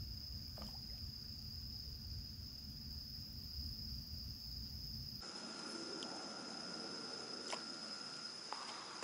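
Crickets trilling in one steady, continuous high tone, with a low rumble under it for the first half; about five seconds in a second, lower trill comes in, with a few faint clicks.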